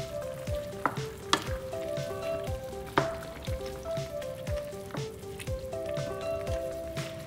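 Wooden spoon stirring cabbage through a pan of boiling soup, with hissing bubbling and sharp knocks of the spoon against the pan, loudest twice in the first few seconds. Background music with a steady beat plays throughout.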